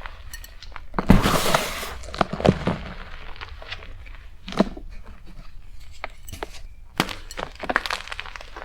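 Block of BSN gym chalk (magnesium carbonate) crunching and crumbling as it is squeezed and broken apart, in a series of separate crunches and cracks, the loudest and longest about a second in.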